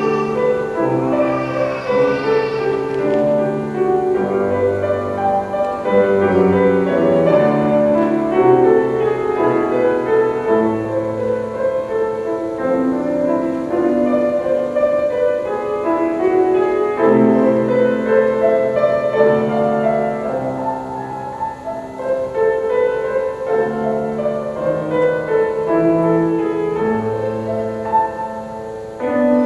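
Slow classical-style piano music, a melody over chords and a moving bass line.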